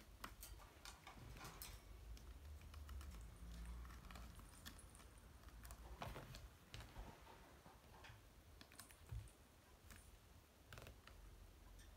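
Faint, irregular scratching and clicking of kittens' claws on a carpeted cat tree and its sisal-rope post.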